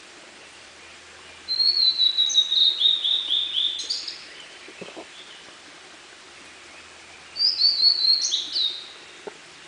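Blue-and-white flycatcher singing: two phrases of clear, high whistled notes, a longer one lasting a few seconds in the first half and a shorter one near the end.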